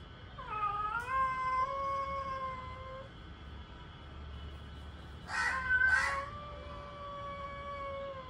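Cats in a territorial standoff caterwauling: a long, drawn-out yowl held for about two and a half seconds, then a harsh, raspy outburst followed by a second long yowl that runs on past the end.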